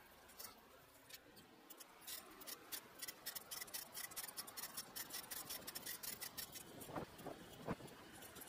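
Light, irregular clicking and rattling from a bicycle being ridden, several clicks a second, starting about two seconds in. A few short squeaks come near the end.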